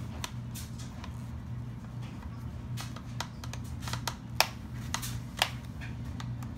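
Scattered plastic clicks and snaps as the bottom access plate of an HP Pavilion DV7 laptop is pried off by hand, the loudest snap a little past halfway.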